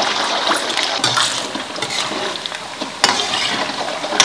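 Peeled hard-boiled eggs deep-frying in hot oil in a wok over medium-low heat, the oil sizzling and crackling steadily, with a slotted metal spatula stirring among them. This is the slow frying that blisters the egg whites golden for tiger-skin eggs.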